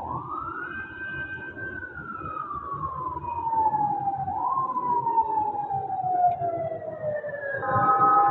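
A siren wailing: its pitch rises quickly, holds briefly and then falls slowly, twice over, growing gradually louder. Near the end a chord of several steady horn tones sounds over it.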